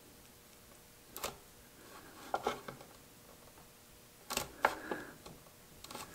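A handful of light knocks and scrapes as a statue is set and pressed down into a small western red cedar box.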